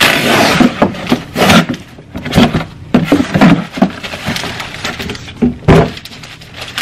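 A cardboard shipping box being opened and unpacked: the flaps scrape, and the wrapping inside rustles and crinkles, with a run of sharp scrapes and knocks. The loudest knock comes near the end.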